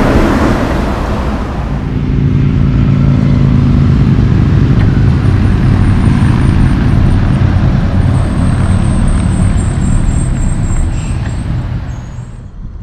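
Heavy diesel truck traffic. A truck passes close with a loud rush of tyre and road noise, then a steady low diesel engine drone with a faint high whine above it, fading out near the end.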